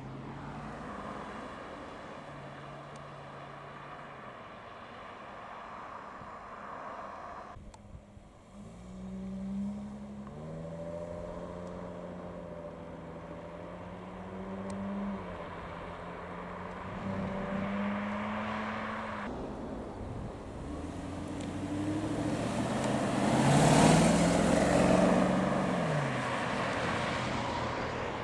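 Jaguar cars driving past and accelerating away along a country road, their engine notes rising as they pull off, heard in several short clips that cut abruptly from one to the next. The loudest is a car passing close about three-quarters of the way through, its engine note falling as it goes by.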